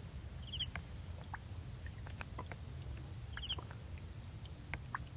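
Faint short high animal chirps, twice about three seconds apart, with scattered light ticks over a low hum.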